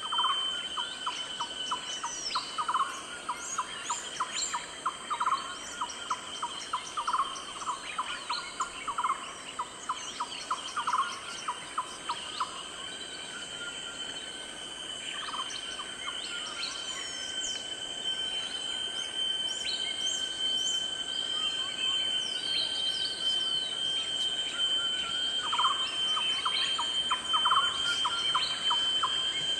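Nature soundscape of birds chirping over a steady, high insect drone, with a fast run of pulsed calls that stops about twelve seconds in and comes back near the end.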